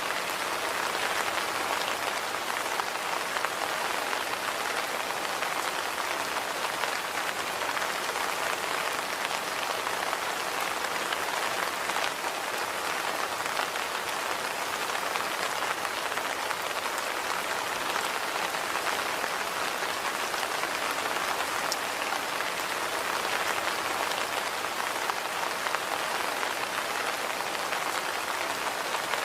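Steady rain falling on a surface, an even patter of many drops with the odd distinct drop tick.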